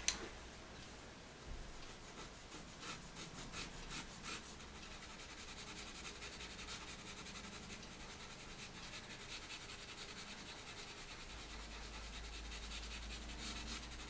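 Black Caran d'Ache pastel pencil scratching and rubbing on Hahnemühle Lana Colours pastel paper. It is a faint, dry scratching, in distinct short strokes at first and steadier later on.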